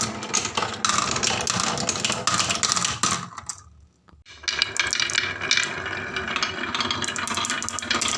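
Marbles rolling and clattering down wooden marble-run tracks in a dense, rapid clicking rattle. It fades out about three and a half seconds in and starts again a moment later.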